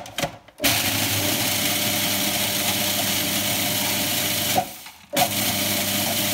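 Electric food chopper or blender running, grinding Doritos tortilla chips into crumbs, after a few clicks as the lid is closed. It runs steadily for about four seconds, stops briefly, then runs again.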